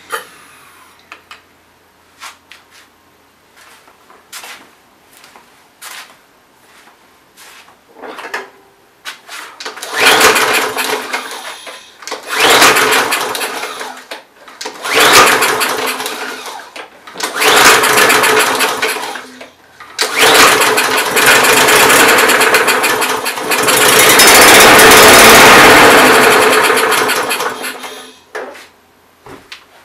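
Briggs & Stratton lawn mower engine pull-started again and again: a few light clicks of handling, then about six tries from ten seconds in, each firing and running for one to three seconds before dying, the last running about four seconds. It won't keep running because the throttle butterfly in the refitted plastic carburettor is facing the wrong way, so it gets no throttle.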